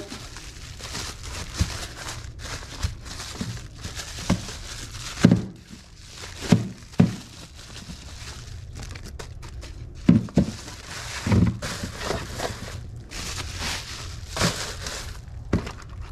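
Bubble wrap and plastic packaging crinkling as new ignition coil packs are unwrapped by hand, with scattered knocks of hard parts set down on a tabletop. A few louder knocks come near the middle.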